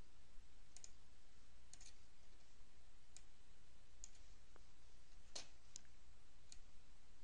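Computer mouse buttons clicking: about seven faint, sharp clicks at irregular intervals, some in quick pairs, while deleting columns through a right-click menu. A faint steady low hum and hiss runs underneath.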